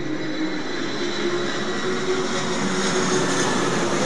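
Jet airliner on final approach, gear down, flying low past: a steady rush of engine noise with a faint high whine, growing slightly louder.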